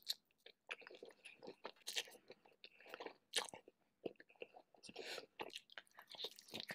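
Close-miked eating of lobster and noodles in a spicy red sauce: irregular wet bites, crunches and chewing.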